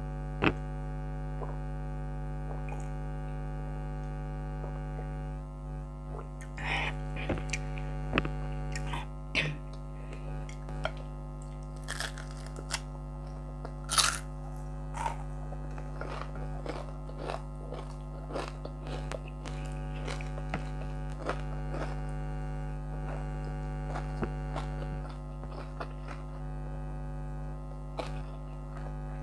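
An air conditioner hums steadily throughout. From about five seconds in come close-up mouth sounds of chewing and crunchy bites into fried round scad and vegetables, the sharpest crunch about halfway through.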